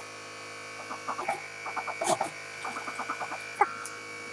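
Steady electric hum of an industrial sewing machine's motor left running between seams, under scattered soft rustles and clicks of fabric being handled. The high part of the hum cuts off about three-quarters of the way through.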